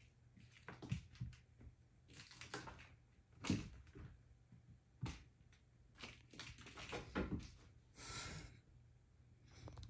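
Soft, scattered thumps, taps and scuffs from a cat playing with a toy mouse, with a brief scratchy rustle about eight seconds in.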